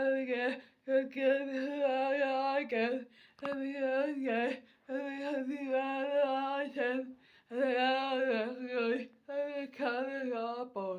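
One voice singing without accompaniment: held, wavering notes in phrases of one to two seconds, broken by short pauses, with hardly any clear words.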